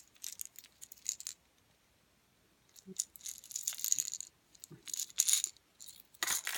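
Fishing tackle being handled in a plastic tackle box: bursts of small hard clicks and rattles, with a quiet pause about two seconds in.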